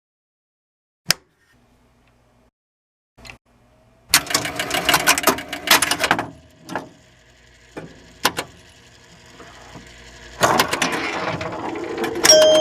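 Mechanical clicking and rattling: a sharp click about a second in, then a dense run of rapid clicks a few seconds later, a few separate clicks, and a rising rush of noise near the end.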